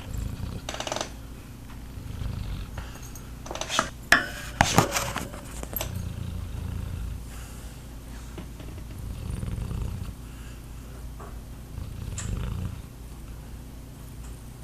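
Snoring: slow, low rasping breaths that swell and fade about every three seconds. A few sharp knocks sound about four seconds in.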